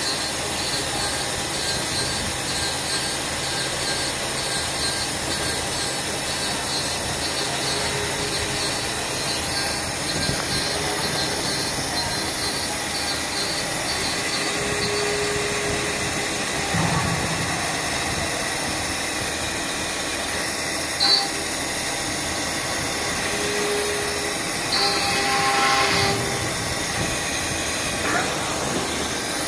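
CNC profile machining center's BT40 spindle milling a metal profile under flood coolant: a steady cutting and spraying noise with a faint high whine for the first half. A single sharp click comes about 21 seconds in.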